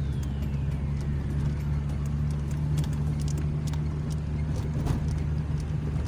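Car cabin noise while driving: a steady low engine and road hum, with a few light clicks and rattles.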